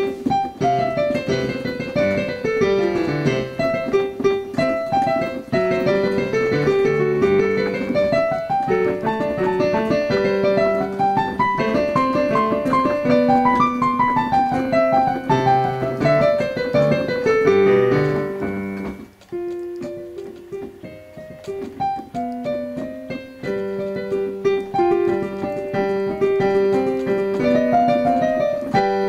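Sonatina played on an electronic piano keyboard: quick runs of notes climbing and falling, with a softer, slower stretch about two-thirds through before the brisk playing picks up again.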